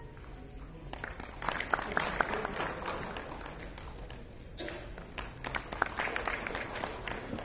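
Audience applauding with scattered hand claps. The clapping dies down near the start, picks up, thins out again about halfway, then resumes.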